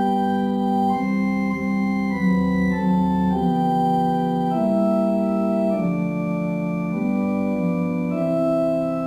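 Organ playing a slow hymn tune in held chords that change about once a second.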